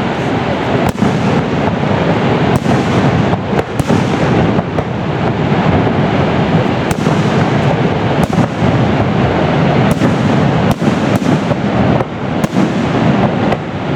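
Fireworks exploding in a rapid, continuous barrage: many sharp bangs a fraction of a second to a second apart over a steady low rumble.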